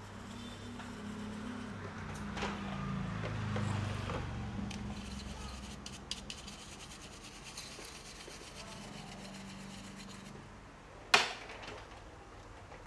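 Rubbing and scrubbing while the dusty inside of an opened laptop is cleaned. A low hum falls in pitch over the first few seconds, and there is one sharp click near the end.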